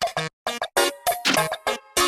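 Playful soundtrack music in short, choppy notes with brief pauses between them.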